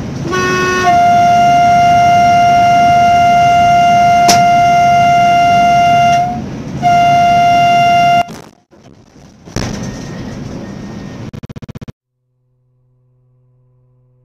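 A vehicle horn sounding one loud, steady note. It is held for about five seconds, stops briefly, then blasts again for about a second and a half, followed by a short burst of noise.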